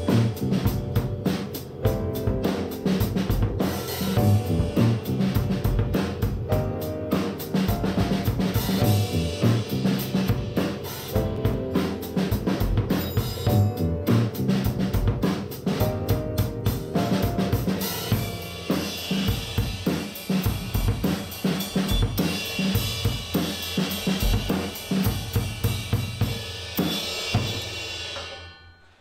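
A drum kit playing a busy beat of snare, bass drum, hi-hat and cymbals, with pitched parts underneath, stopping abruptly at the end.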